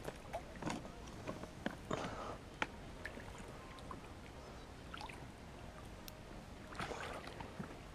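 Light splashing and sloshing of water with scattered small clicks and knocks, from handling a carp and slipping it back into the lake.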